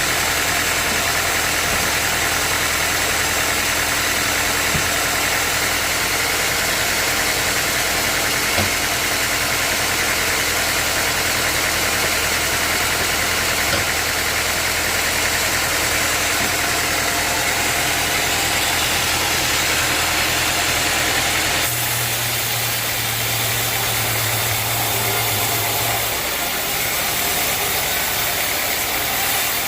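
Sawmill machinery running steadily with an even, loud machine hum. About three-quarters of the way through, the sound changes abruptly: a different low hum sets in for a few seconds, then drops away.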